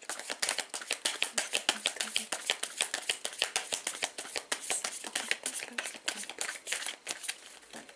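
A deck of tarot cards being shuffled by hand: a fast, even run of soft card clicks, several a second, thinning out near the end.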